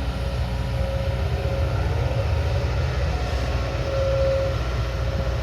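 Diesel engine of heavy earthmoving machinery running steadily, with a low rumble and a faint steady whine.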